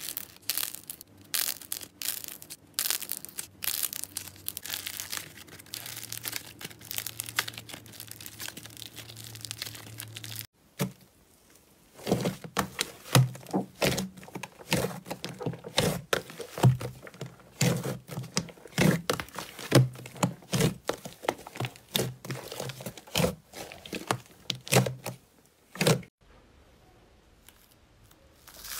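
Hands squeezing and pressing slime, giving a dense run of small crackles and pops as trapped air bursts. There is a short break about ten seconds in, after which a second slime is pressed with louder, sharper clicks.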